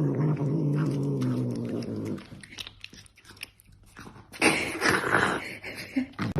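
A pet's low, drawn-out growl lasting about two seconds, followed by faint scuffing clicks and a short hiss-like noise near the end.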